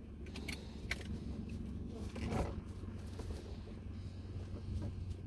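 Seat belt and shoulder harness being fastened and adjusted: a few light clicks in the first second and a rustle of webbing midway, over a low steady hum.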